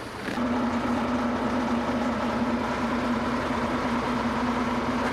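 An engine running steadily at constant speed, a low even hum with a fainter higher whine above it; it starts suddenly just after the start.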